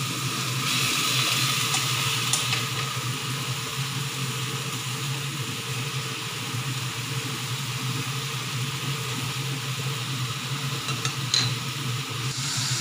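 Chicken pieces sizzling steadily as they sear in a nonstick wok, being browned a little. A couple of short taps from the plastic spatula turning them, about two seconds in and near the end.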